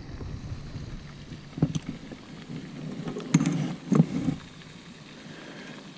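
Handling noise aboard a fishing kayak as a small bluegill is being handled: a couple of sharp clicks, then two short dull knocks, over a low background rustle.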